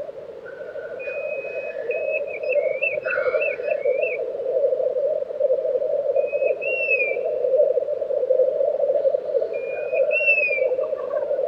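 Black grouse males at a lek making their continuous rolling, bubbling coo, with a short hiss about three seconds in. Higher whistled calls with wavering trills and falling glides sound over the rolling now and then.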